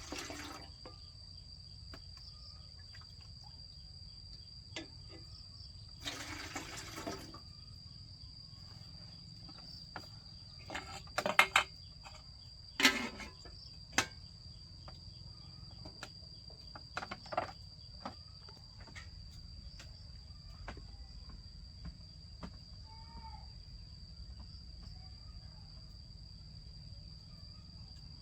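Insects calling in one steady high drone, with a few sharp knocks and a brief rush of noise partway through.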